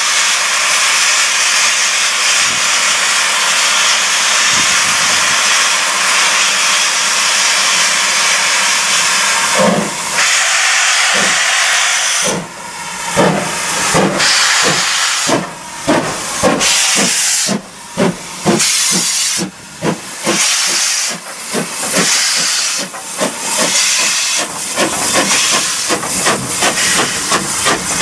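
Steam locomotive 41312, an Ivatt Class 2MT tank engine, starting away: a loud steady hiss of steam for about ten seconds, then exhaust chuffs that begin slow and quicken as it gathers speed. Steam keeps hissing from its open cylinder drain cocks throughout.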